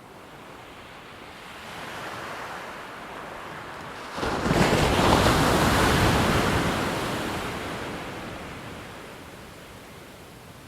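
An ocean wave breaking: a rushing swell that crashes suddenly about four seconds in, then washes out and fades slowly.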